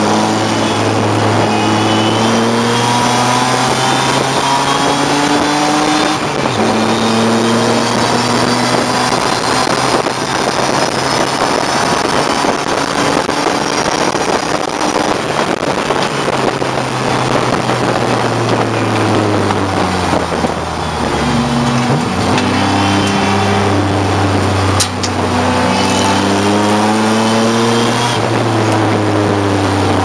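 BMW E34 race car's engine heard from inside the stripped cabin, pulling hard through the gears: the pitch climbs and drops back at each upshift, sags low as the driver lifts and brakes about two-thirds in, then climbs again through several quick shifts. Road and wind noise fill the cabin throughout.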